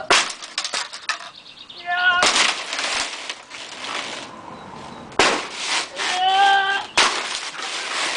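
Demolition work: four heavy smashing impacts, each followed by the crackle of breaking material, with voices calling out in between.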